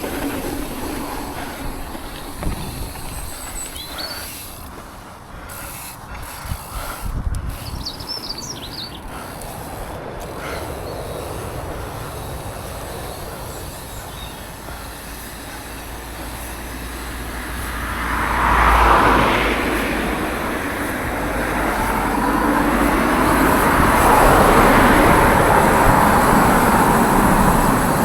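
Mountain bike rolling along a dirt trail: tyre and drivetrain rolling noise mixed with wind buffeting the chest-mounted microphone. It swells louder about two-thirds of the way in and stays loud near the end.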